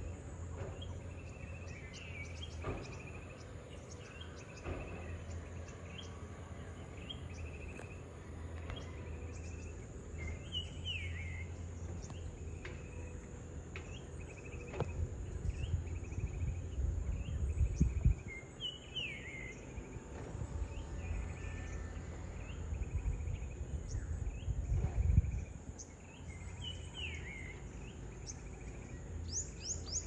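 Distant tracked hydraulic excavator (backhoe) working, its diesel engine a steady low drone that grows louder twice for a few seconds. A steady high insect buzz and repeated short bird chirps sit over it.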